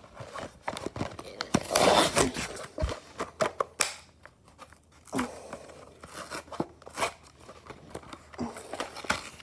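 Cardboard-backed plastic blister package of a die-cast toy car being torn open by hand: irregular tearing and crinkling in bursts, the loudest rip about two seconds in.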